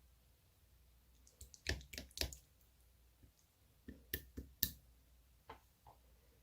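Slime being squished and pressed by hand, giving sharp wet clicks and pops in two quick clusters, with a couple of softer ones near the end.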